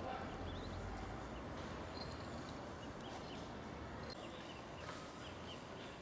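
Eastern spot-billed duck ducklings peeping now and then: a few short, faint, high chirps over a steady low background noise.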